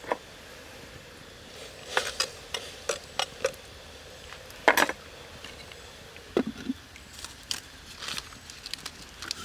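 A ladle knocking and scraping against a clay cooking pot while shrimp are stirred in it, with scattered sharp clicks and one louder knock just before the middle, and the pot's clay lid being set on.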